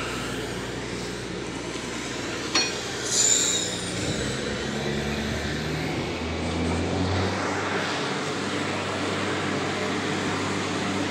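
Outdoor background noise with the low, steady hum of a motor vehicle engine running, which shifts in pitch about four seconds in; a sharp click and a brief high squeak come about two and a half to three seconds in.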